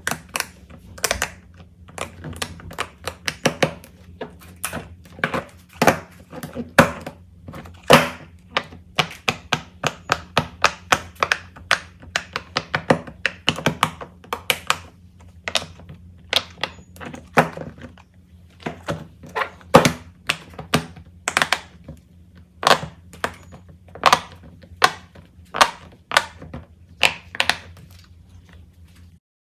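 Fidget toys being handled: a long, irregular run of sharp pops and clicks, several a second, some louder than others, over a steady low hum.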